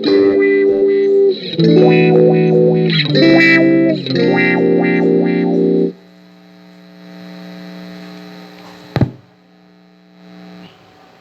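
Electric guitar played through a Zoom G7 multi-effects processor with distortion: several sustained, changing chords, then muted sharply about six seconds in. A faint ringing tail follows, with a single sharp click about three seconds later.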